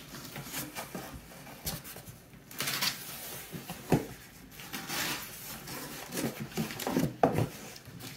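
Cardboard mailer packaging being handled and opened: intermittent rustling and scraping with several short, soft knocks.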